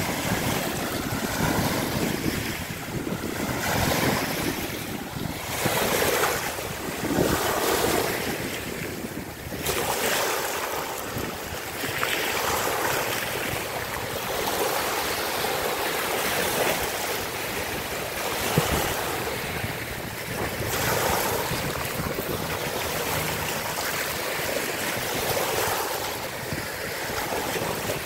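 Small waves washing up over the sand at the water's edge, a steady hiss of surf that swells and falls back every few seconds.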